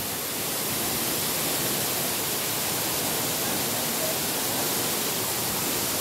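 Waterfall plunging down a rock face into its pool: a steady, even rush of falling water.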